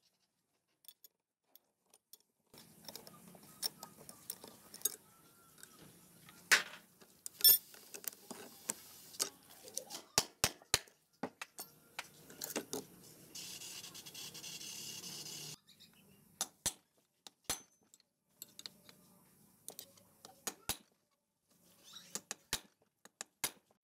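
Hand tools clinking and knocking on a small motorcycle engine's magneto flywheel as a wrench and flywheel holder are used to loosen it and take it off. The sound is a run of sharp metallic clicks and clanks, with a steady rasping noise for about two seconds past the middle.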